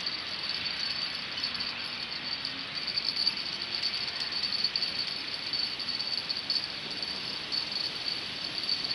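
A fishing rod and reel rattling steadily as a hooked fish is reeled in and played.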